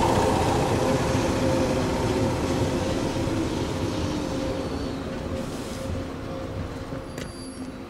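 A 169-series electric train running with a steady hum and rail noise that fades away evenly as it moves off.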